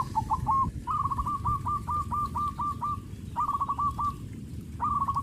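A bird calling in fast runs of short, clear, falling notes: a long run of about eight notes, then two shorter runs, over low, rough background noise.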